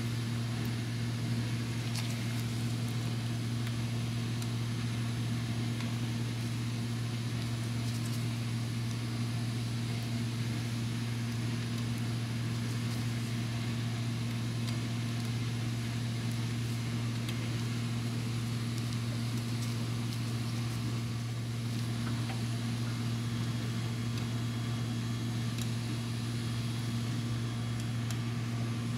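Steady low machine hum, like a fan or air-conditioning unit running, with a few faint clicks of small metal parts being handled.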